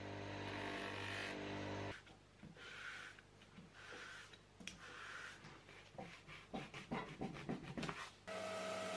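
An Einhell bench grinder with a sanding wheel runs with a steady hum for about two seconds and then cuts off. A knife is then drawn over a rubber shoe sole in rasping strokes, quickening into a fast run of scraping strokes near the end. A belt sander starts with a steady, tonal hum just before the end.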